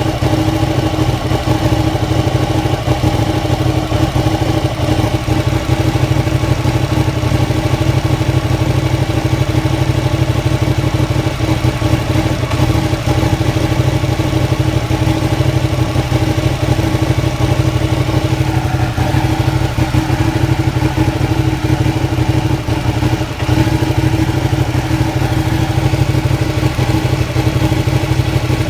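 Ducati Panigale 959's Superquadro V-twin engine idling rough, running steadily at a loud, unchanging idle; the owner does not know the cause, and the engine also tends to stall.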